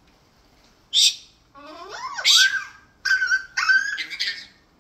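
Eclectus parrot calling: a short harsh screech about a second in, then a whining call that rises and falls, then two harsh squawks over a held tone.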